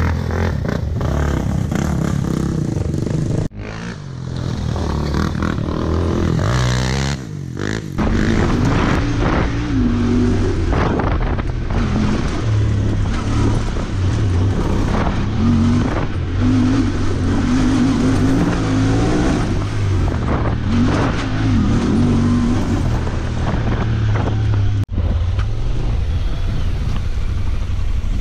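Off-road vehicle engines running and revving up and down: an ATV climbing a dirt hill, then a side-by-side driving a rough wooded trail. The sound breaks off abruptly a few times where one clip cuts to the next.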